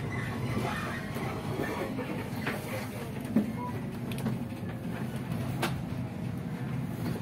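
Cabin noise of a city bus under way: a steady low engine and road rumble with scattered rattles and knocks, a sharp knock about three and a half seconds in.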